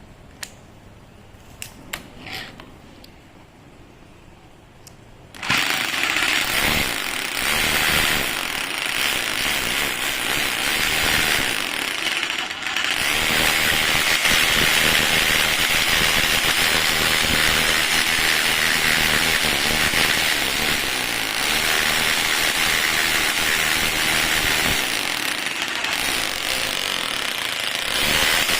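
Makita M8701 rotary hammer drill switched on about five seconds in after a few light clicks, then running loud and steady for over twenty seconds, briefly easing off twice before stopping near the end.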